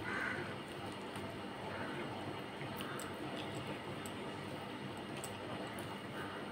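Fingers squishing and mixing rice and fish curry on a steel plate, with a few light sharp clicks and soft rustles over a steady background hiss.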